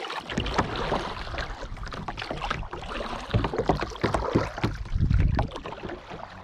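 Kayak being paddled across a lake: irregular paddle strokes splash and knock through the water. There are louder low rumbling surges about halfway through and near the end.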